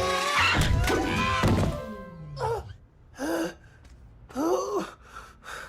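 Cartoon background music with a few thuds for about two seconds, cut short, then four short wordless vocal sounds from a cartoon character, like gasps or grunts, with pauses between them.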